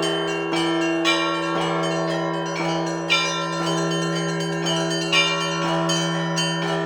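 Russian Orthodox church bells being rung: several bells are struck in a steady rhythm of about two strokes a second over the continuing hum of a larger, lower bell.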